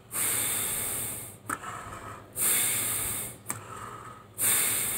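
A man breathing deeply and forcefully in a single-nostril breathing exercise: drawing breath in through the mouth and blowing it out through the left nostril while the right nostril is pressed shut. Three strong breathy rushes, each about a second long, with softer breaths between them.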